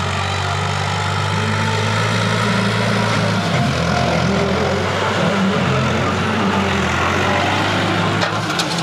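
Massey Ferguson 260 tractor's diesel engine running steadily under heavy load while pulling a disc harrow, hard enough to lift the front wheels. A few sharp clicks near the end.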